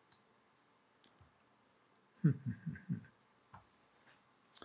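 A few soft computer mouse clicks, spaced a second or more apart, with a brief muttered voice about two seconds in.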